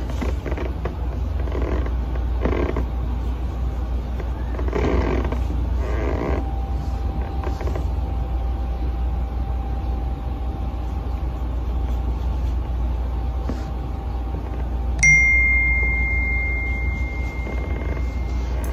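Polyester batting rustling in short soft swishes as it is handled and cut, over a low steady hum. About fifteen seconds in, a bright bell-like ding starts sharply and holds for about three seconds.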